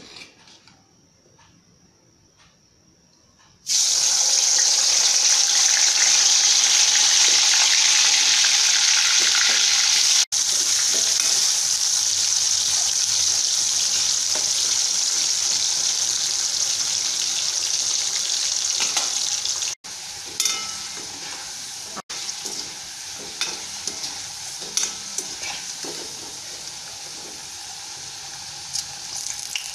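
Turmeric-coated elephant foot yam cubes deep-frying in hot oil in a steel kadai. A loud, steady sizzle starts suddenly about four seconds in. After about twenty seconds it becomes quieter, with light clicks of a metal slotted ladle against the pan.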